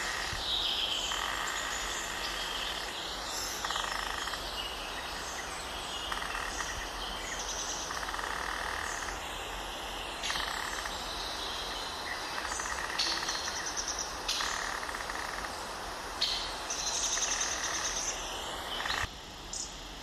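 Many birds calling and chirping over a steady hiss, with some whistled calls that slide up and down in pitch. The sound drops abruptly about nineteen seconds in.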